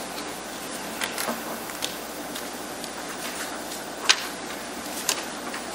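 Room tone of a meeting room: a steady hiss with a few faint clicks and taps, the most distinct about four seconds in.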